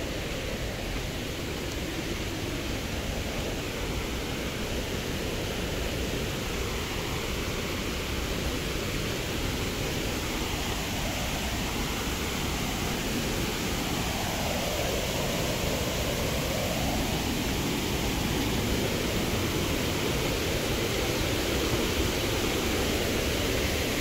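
Small waterfall, a steady rush of falling water that grows slightly louder toward the end.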